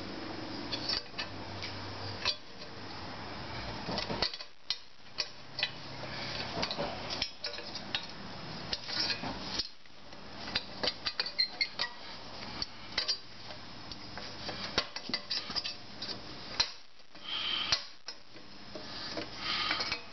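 Irregular metallic clinks, taps and scrapes of a steel pry tool working against a motorcycle rear brake disc and its carrier ring held in a vise, with the loosened parts knocking together as they come apart.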